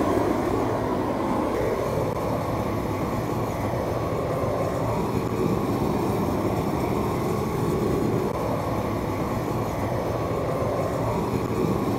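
Hose-fed propane wand torch burning with a steady, even rushing flame, played over the pallet wood to char it.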